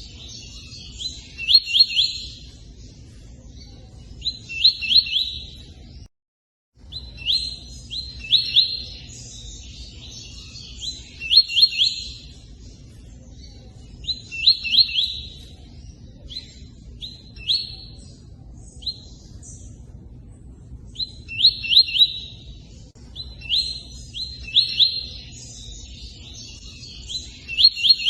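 A bird known in Brazil as tui-tui singing hard, in repeated short phrases of quick, high, rising notes every second or two, over a steady background of running water. Everything cuts out for a moment about six seconds in.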